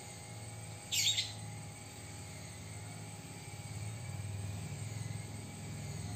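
A single short, high-pitched squeal from a baby macaque about a second in, over a faint steady low hum.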